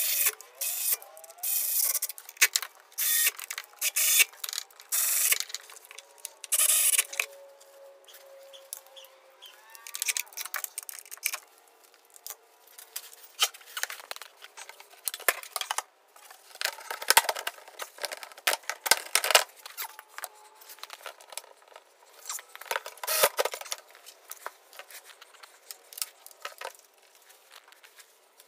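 Sped-up time-lapse workshop sound: rapid, irregular runs of tool clicks, whirs and clatter, with louder stretches near the start and again past the middle.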